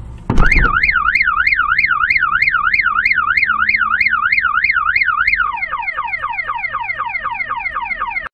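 A loud bang, followed at once by an electronic car alarm sounding: a fast up-and-down warble that switches, about five seconds in, to a quick run of falling sweeps.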